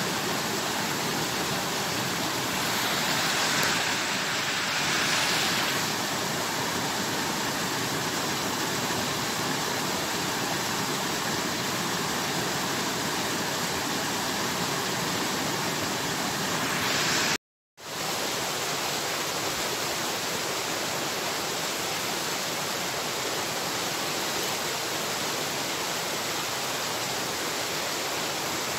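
Steady rushing of running water, broken once by a brief cut to silence a little past halfway.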